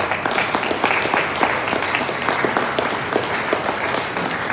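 Audience applauding: many people clapping together in a dense, steady patter that eases off a little near the end.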